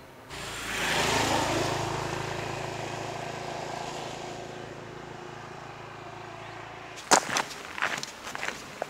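A road vehicle's engine passing by, swelling in the first second and then slowly fading until it cuts off about seven seconds in. Then footsteps on a dirt trail, about two steps a second, the first one the loudest.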